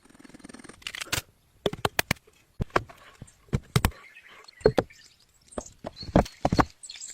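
A series of irregular sharp knocks and clacks, about a dozen in all, with a short scraping rustle about a second in.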